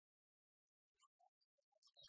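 Near silence, with faint scattered clicks and short sounds starting about a second in.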